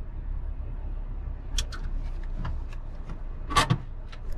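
Low, steady rumble of a VW Transporter T6.1 camper van moving slowly, heard from inside the cab, with a few short clicks and knocks. The loudest knock comes about three and a half seconds in.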